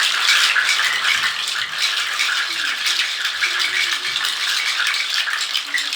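Homemade shaker rattles of jatobá seeds, plastic bottle caps and goat hooves shaken together, a dense, continuous clatter of fine clicks meant to imitate the sound of water.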